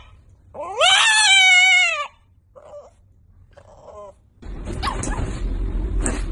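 French bulldog letting out one long, high whining cry that falls in pitch at the end, followed by two short, faint whimpers. A little after halfway a steady noisy background comes in, with a couple of short knocks.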